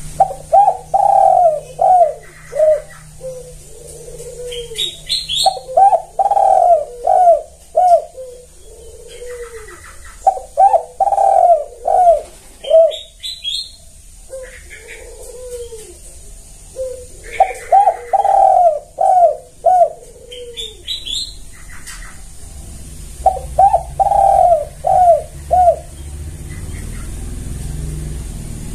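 Spotted dove (tekukur) cooing loudly and repeatedly. It gives five phrases about five seconds apart, each a quick run of coos that ends in a lower, drawn-out coo.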